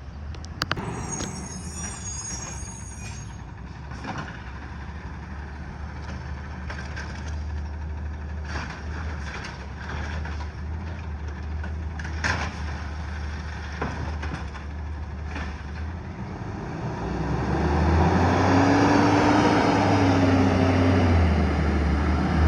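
Heavy truck engine running with scattered clanks and knocks and a brief high squeal about a second in. For the last few seconds the engine gets louder, its pitch rising and then falling.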